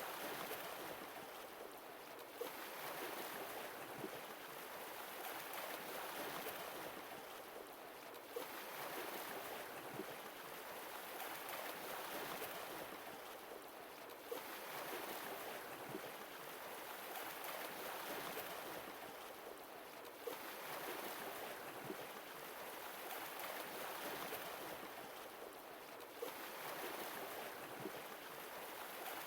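Sea waves washing ashore, the surf swelling and easing about every six seconds.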